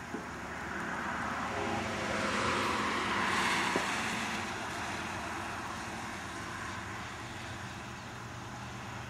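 A road vehicle passing on wet pavement: tyre hiss swells to a peak about three and a half seconds in, then fades away.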